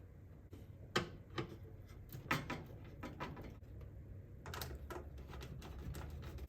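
Scattered clicks and knocks of a motherboard and its screws being handled and fitted into a computer tower case, with a low rumble in the last couple of seconds.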